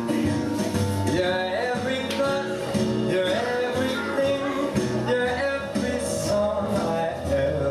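Country-style dance music with guitar and a singing voice.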